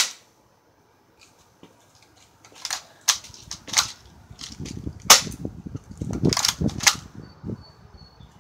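A single sharp crack of a Crosman Powerline 340 BB pistol firing right at the start, then about seven sharp clicks and rattles of the pistol being handled, from near the middle until about a second before the end.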